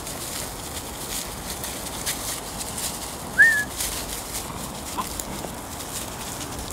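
Dry leaves rustling and crackling under several seven-week-old greyhound puppies as they play-fight, with one short, high yelp from a puppy about halfway through that rises and then levels off.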